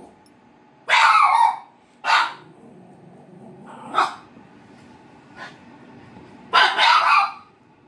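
Dog barking in separate barks a second or two apart, the loudest about a second in and near the end, at a cardboard box she dislikes.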